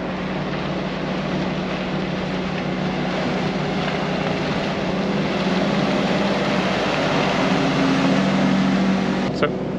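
Steady drone of boat engines over rushing water and wind noise; a second engine hum joins and the sound grows a little louder in the second half as speedboats run past.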